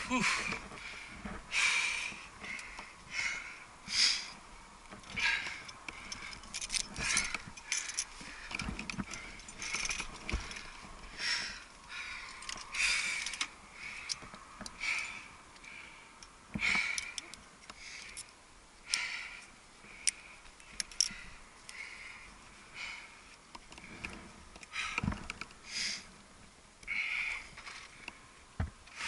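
A rock climber's heavy breathing during exertion: short, sharp breaths about every second or so. Now and then there is a light clink of metal climbing gear, cams and carabiners.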